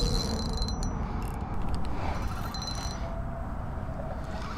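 Fishing reel being worked against a hooked striped bass: short spells of a thin, high mechanical whine with clicking from the reel, near the start and again about two and a half seconds in, over a steady low rumble.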